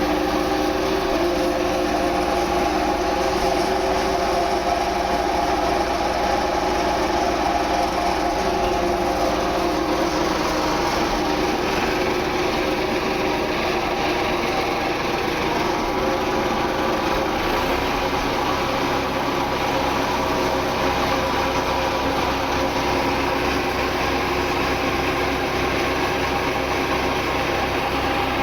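Standard Fordson tractor's four-cylinder side-valve engine running steadily while it warms up on petrol before being switched over to TVO. Its note changes about two-thirds of the way through.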